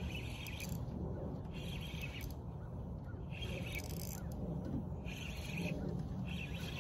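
Spinning reel whirring in short bursts, each about half a second long and roughly every second and a half, while a hooked fish pulls against a bent rod. A steady low rumble of wind runs underneath.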